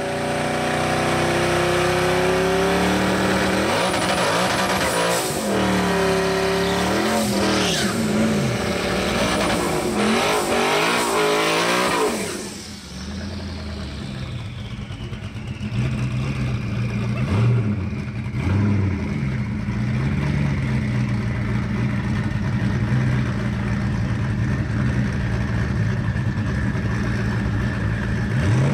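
Twin-turbo Coyote V8 in a Ford Mustang drag car revving hard, its pitch rising and falling repeatedly for about twelve seconds. It then settles into a lower, steady idle with a few short throttle blips as it rolls up to the starting line.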